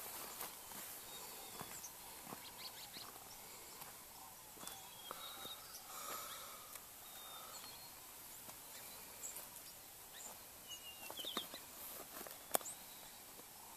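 Faint outdoor ambience, a steady hiss with a few brief, high bird chirps scattered through it and a quick run of notes near the end. A single sharp click stands out just before the end.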